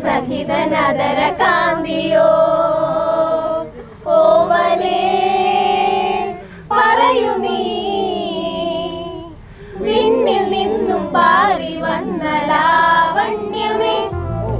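A high voice singing a slow melody in long held notes, with short breaks between phrases and little or no accompaniment.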